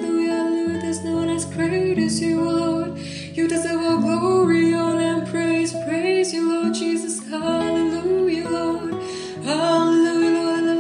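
A woman singing a slow worship song, holding long notes, over guitar accompaniment.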